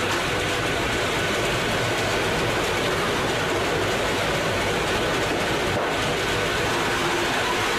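Heavy machinery running with a steady, dense noise and a few faint humming tones, even in level throughout.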